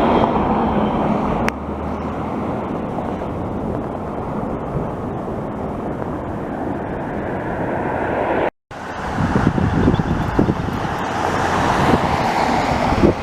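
Jet airliner engine noise, steady and fairly loud, mixed with wind on the microphone. It drops abruptly about a second and a half in and cuts out briefly about two-thirds through, after which gusty wind rumble on the microphone is the loudest thing.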